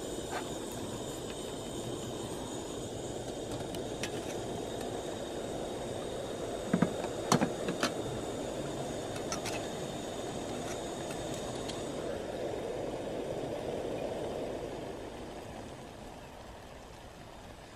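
Canister gas camping stove burner running with a steady rushing sound; a few metal clinks about 7 seconds in as the cook pot is set on the stove's pot supports. About 15 seconds in the sound drops as the flame is turned down.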